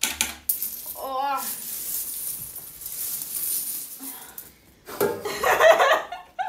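Metal coins pouring out of a tin coin bank and clinking onto a heap of coins, with a short vocal sound about a second in. Laughter near the end.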